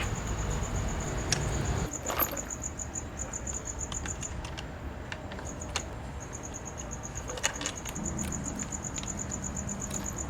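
Insects trilling: a fast, even pulsing high note that runs on with brief gaps. A low rumble stops about two seconds in, and a few sharp clicks and knocks sound over it.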